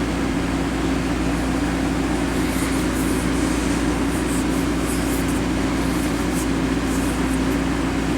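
Belt sander running steadily, with intermittent high-pitched scraping from about two and a half seconds in as the steel pliers are pressed against the abrasive belt. The sanding belt is torn.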